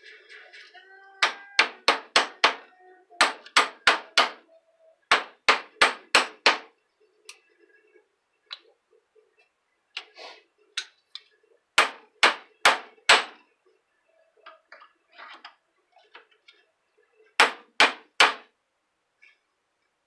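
Hammer blows on a microwave-oven transformer, in quick runs of four or five strikes with pauses between, each with a short metallic ring.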